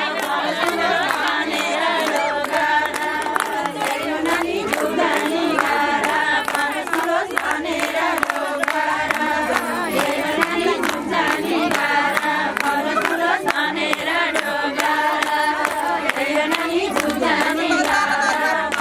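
Women singing a Nepali ratyauli folk song in chorus, with the group clapping hands in a steady rhythm.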